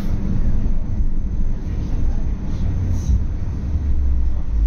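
Steady low rumble of a GT6M articulated tram running, made by its traction motors and wheels on the rails and heard from inside the passenger compartment.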